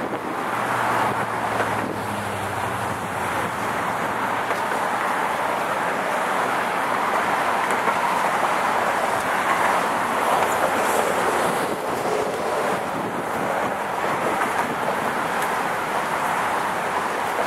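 Road traffic passing on the bridge's roadway: a steady wash of tyre and engine noise that swells and fades as vehicles go by, with a heavier engine hum in the first few seconds. Wind buffets the microphone.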